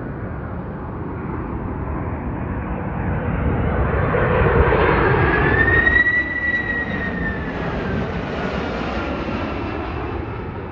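Boeing 767-300 freighter's twin jet engines on arrival, passing close by: a steady jet rumble swells to its loudest about halfway through, with a high whine that rises and then slowly falls in pitch as it goes past.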